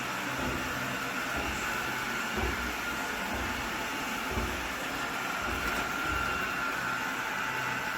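Lubluelu L20 robot vacuum running steadily, its motor giving a constant high whine over a whooshing hum, with a couple of soft low thuds about two and four seconds in.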